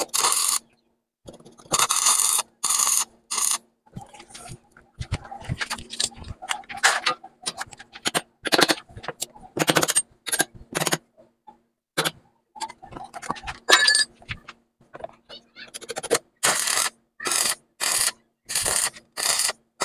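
Wire-feed welder tack- and stitch-welding on the rear frame of a Yamaha DT125, the arc crackling in short bursts of about half a second with short pauses between them, coming in a quicker, regular run near the end.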